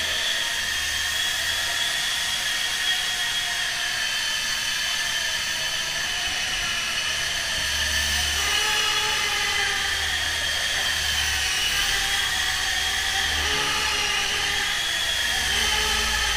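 High-pitched whine of small electric motors, running steadily while the pitch wavers slowly up and down.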